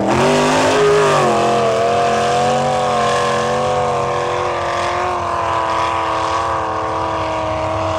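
Lifted mud-bogging pickup truck's engine running hard at high revs as it ploughs through a deep mud pit. The pitch wavers in the first second, then holds high and nearly steady.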